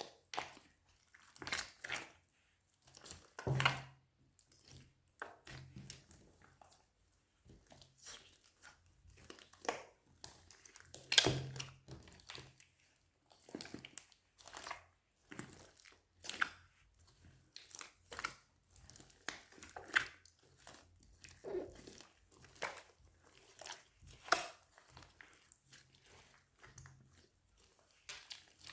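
Slime being pressed and squeezed by hand, making irregular crackling, crinkly pops and crunches, with louder pops about three and a half and eleven seconds in.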